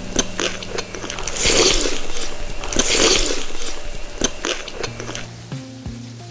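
Crunchy food being bitten and chewed close to the microphone: two loud crunching bursts about a second and a half apart, with smaller crunches and clicks between them.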